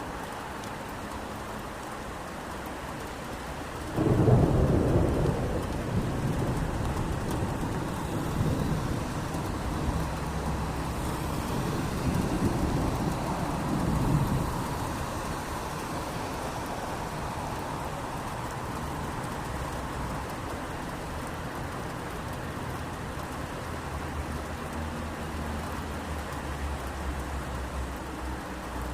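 Steady rain with a sudden clap of thunder about four seconds in, which rumbles on in rolling waves for about ten seconds before dying away under the rain.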